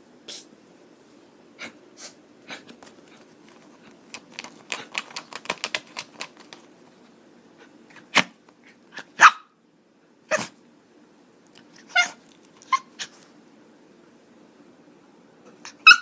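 Chihuahua barking: sharp, high single yaps spaced a second or so apart, after a quick run of fainter short clicking sounds.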